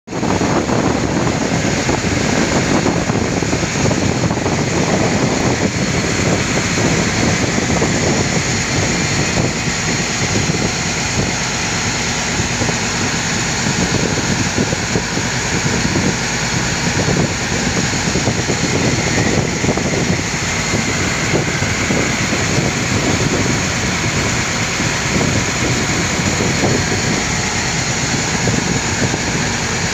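Small wooden fishing boat's engine running steadily under way, with wind buffeting the microphone.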